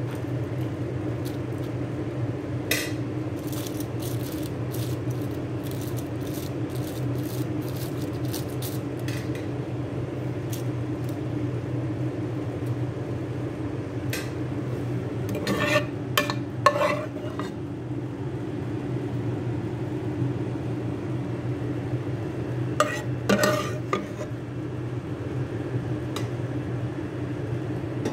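A metal spoon scraping and clinking against a steel pot while rice is spread and spiced chicken gravy is spooned over it, with light taps early on and louder clatters about halfway through and again near the end. A steady hum runs underneath.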